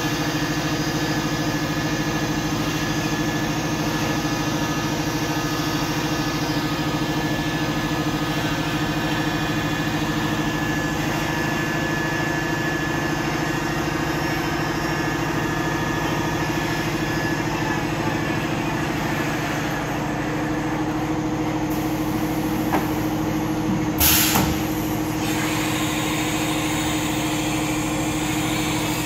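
PROMIL CNC vertical machining center running: a steady mechanical hum with several held tones, shifting slightly about two-thirds of the way through. Near the end comes a short burst of air hiss.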